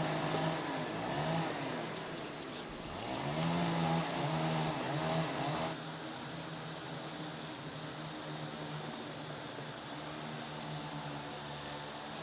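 A motor vehicle engine running, its pitch rising and falling repeatedly as it revs. About six seconds in it drops to a lower, steadier hum.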